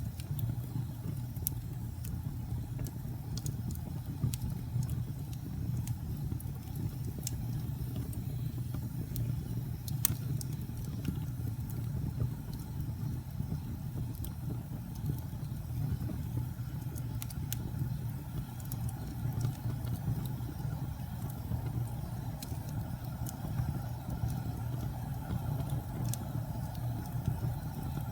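Wood fire burning in a fireplace: a steady low rumble with scattered sharp crackles and pops throughout.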